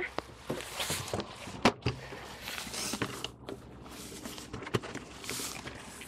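Footsteps on asphalt with clothing rustle, and a few sharp knocks, two close together a little under two seconds in and another near the end.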